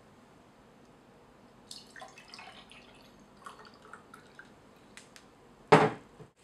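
Milk poured from a glass carafe into a drinking glass: about two seconds of gurgling with small splashes and clicks, starting a couple of seconds in. Near the end comes a single heavy knock as the glass carafe is set down on the wooden table.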